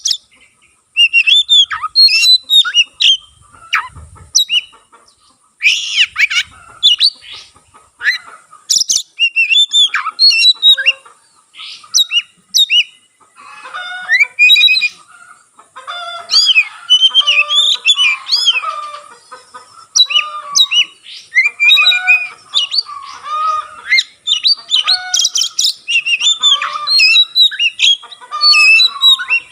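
Oriental magpie-robin (kacer) singing vigorously: a continuous run of varied whistled phrases, with rising and falling notes mixed with harsher chattering notes and short pauses between bursts.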